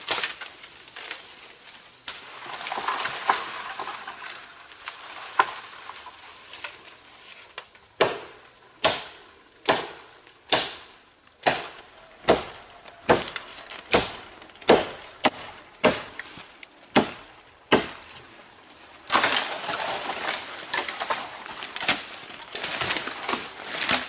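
Machete chopping into a fallen tree trunk: a run of sharp blows on the wood, about two a second, from around eight seconds in to about eighteen. Before and after the chopping there is a rustling of leaves and branches being pushed about.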